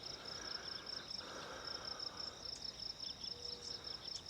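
Insects chirping: a high, rapid pulsed chirping of about five pulses a second over a continuous high, thin buzz.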